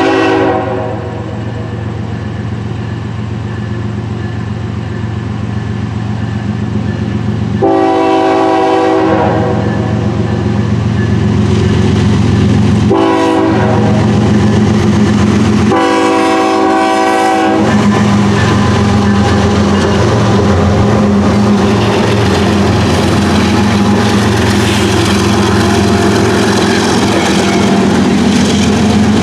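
CN freight train's diesel locomotive horn sounding the grade-crossing signal: a blast ending at the start, then a long, a short and a long blast. Under it runs the steady rumble of the locomotives and the clatter of the rolling cars, which grows louder about eight seconds in as the train passes.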